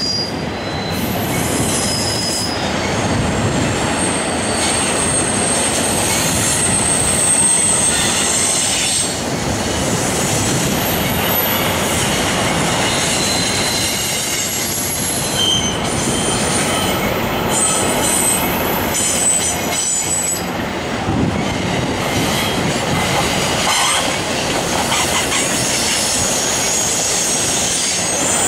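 BNSF intermodal train's double-stack container cars and trailer flatcars rolling past, a steady rumble of steel wheels on rail with high-pitched wheel squeals that come and go.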